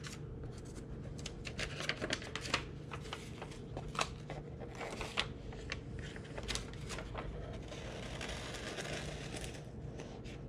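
An old, brittle paper build sheet being peeled off a cardboard door-panel backing, where it is still glued down, giving irregular small crackles and clicks. A softer, longer rustle comes near the end.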